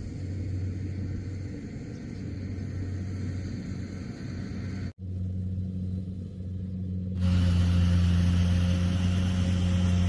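Rice combine harvester engine running with a steady low hum. The sound breaks off sharply about halfway through, and from about two-thirds of the way it is louder.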